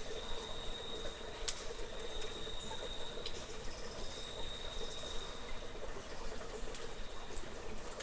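Cave ambience: a steady high-pitched insect trill that stops about six seconds in, over a soft constant trickle of water, with scattered faint clicks and high chirps, one sharp click about a second and a half in.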